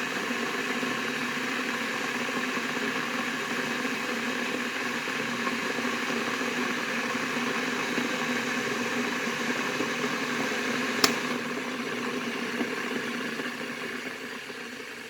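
Kettle boiling with a steady rushing bubble. A single sharp click comes about eleven seconds in, after which the boiling slowly dies down.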